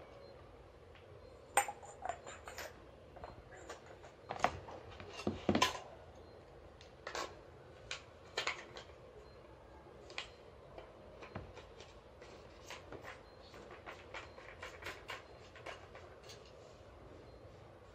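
Clicks and light knocks of a three-axis camera gimbal stabilizer being lifted out of its hard foam-lined case and handled, its hard parts tapping against each other and the case. The loudest knocks fall in the first six seconds; smaller clicks follow.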